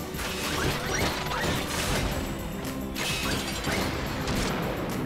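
Cartoon action music with sound effects for vehicles combining into a robot: whooshes every second or so, mixed with mechanical clanks.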